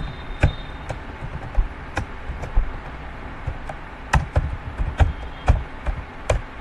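Computer keyboard typing: about a dozen sharp, irregular key clicks, coming closer together in the second half.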